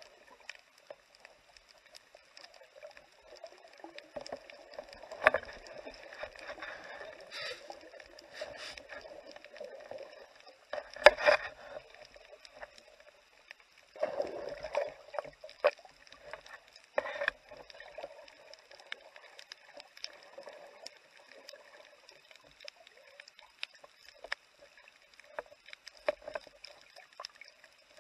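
Underwater sound picked up by a camera in its housing during a night spearfishing dive: scattered sharp clicks and crackles, with louder muffled swishing and knocking from the diver's movements and gear about 5, 11, 14 and 17 seconds in.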